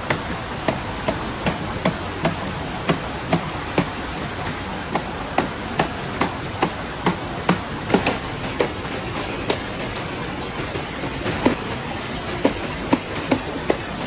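Rhythmic chopping strikes, about two a second, pausing for a couple of seconds after the middle, over a steady rush of water.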